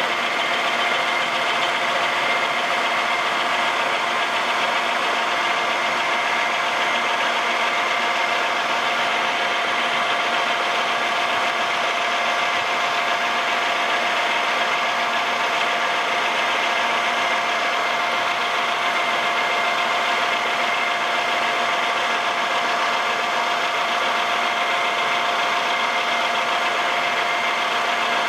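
Vertical milling machine running, its end mill cutting a slot into steel angle iron: a steady mechanical whine with a few constant tones over a continuous cutting noise.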